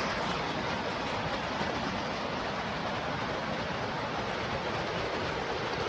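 Steady rushing of a shallow, fast river riffle, with water splashing around a person's legs as he wades through it.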